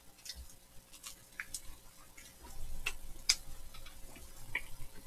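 Two people chewing a flaky croissant pastry close to the microphone: faint, scattered small clicks and crackles from mouths and crust.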